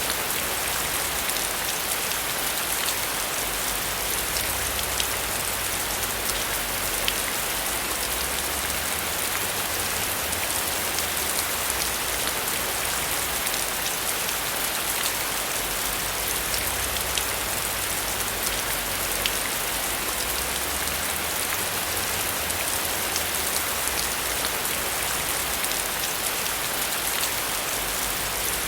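Steady rainfall: a dense, even hiss with many small, sharp drop hits scattered through it.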